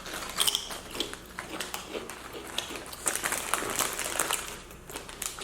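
Close-miked eating sounds: chewing and crunching chips, with irregular crisp clicks and crackles.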